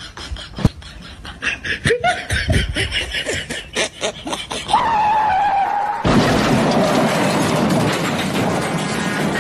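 Laughter and giggling in short bursts for the first few seconds, then a single held tone about halfway. From about six seconds a dense, steady rushing noise takes over.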